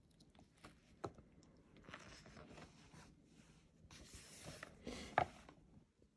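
Pages of a hardcover picture book turned by hand: soft paper rustling and sliding, with a sharp tap about five seconds in as a page lands.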